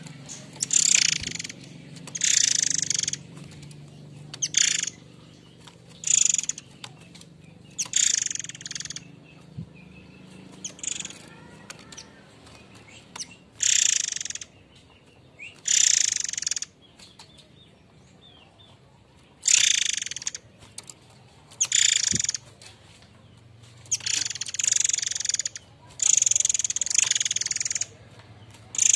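Murai air mancur (forktail) giving its harsh, rasping calls: a series of hissy screeches, each from a fraction of a second to about two seconds long, repeated every second or two with short pauses between.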